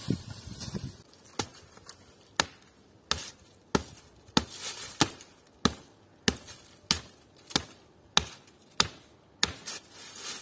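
Wood being chopped with an axe: a steady run of about a dozen sharp strikes, roughly three every two seconds, beginning about a second in.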